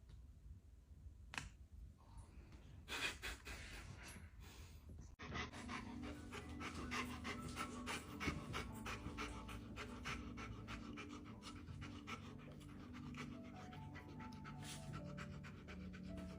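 A dog panting fast and evenly, starting abruptly about five seconds in. Before that come a few short breathy noises.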